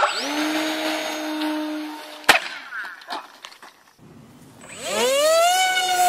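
Radio-controlled model airplane's motor and propeller running with a steady whine, broken off by a sharp crack about two seconds in. Near the end another model plane's motor spools up in a rising whine and holds at full throttle.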